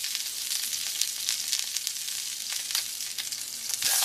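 Egg yolk frying in oil with a little steaming water in a covered cast-iron skillet: a steady sizzle with scattered pops. The sizzle gets louder near the end as the glass lid is lifted off.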